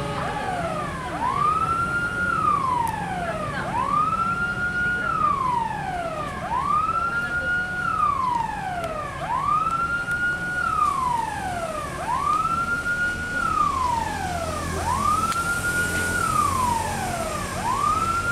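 Railway level-crossing warning siren wailing over and over, about one wail every three seconds: each rises quickly, holds, then slides down. It sounds as a diesel passenger train approaches, and a low rumble from the train grows a little about three-quarters of the way through.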